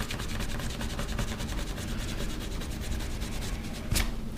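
A scratch-off game card being scraped with the edge of a small metal willow-leaf spinner blade, in quick, even strokes, with one louder scrape about four seconds in.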